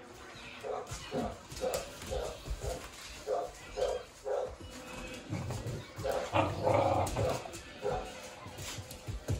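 Young dogs play-fighting, giving short barks and growls about two a second, then a longer, louder bout of growling and barking around six to seven seconds in.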